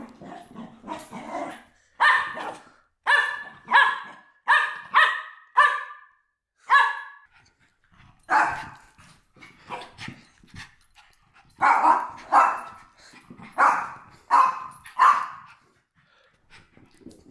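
Small dog barking at play, in short, sharp, high-pitched barks, one or two a second. The barks come in two runs with a short break in the middle.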